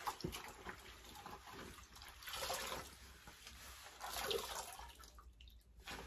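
Faint wet swishing and rubbing of a damp cloth worked against a front-loading washing machine, loudest a little after two seconds and again about four seconds in.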